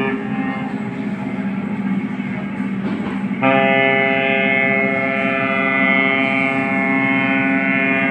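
An RC boat sound module playing a recorded horn effect through its small speaker over a steady engine hum. The horn tone fades just after the start and sounds again, louder and held, from about three and a half seconds in.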